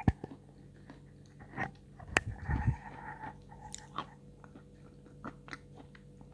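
Close-miked chewing and lip smacks as a mouthful of layered cake is eaten, with small wet mouth clicks. A sharp knock right at the start and a second click with a low rumble around two seconds in come from the clip-on microphone being handled and held up to the mouth.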